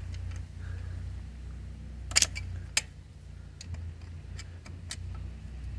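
Sharp metallic clicks of a wrench on a dirt bike's oil drain bolt as it is snugged up: a loud double click about two seconds in, another just after, then a few lighter ticks, over a low steady rumble.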